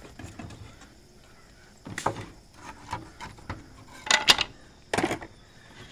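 Loose wooden strips being handled and set down on a workbench: a sharp wooden knock about two seconds in, a quick pair of knocks about four seconds in, and another about a second later, with soft shuffling of wood between them.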